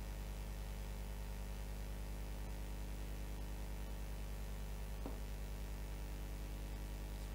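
Steady low electrical mains hum with a faint even hiss, unchanging throughout; a brief faint sound about five seconds in.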